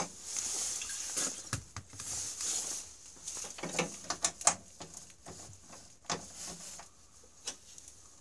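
Aerosol can of PB Blaster penetrating oil hissing in two short sprays onto the rusted snowmobile engine-mount nuts, then several sharp metal clinks and knocks of tools being handled.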